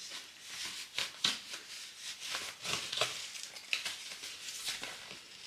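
Rustling and light clicking from handling a new winter boot just pulled on, a string of short irregular scrapes and crinkles.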